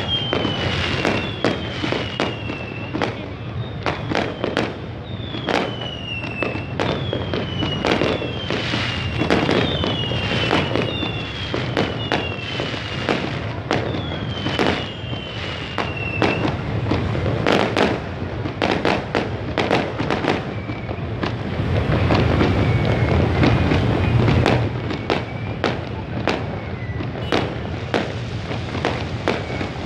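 Fireworks bursting overhead in a rapid, continuous series of bangs and crackles, with repeated short falling whistles through the first half and fainter ones later, over a low street din.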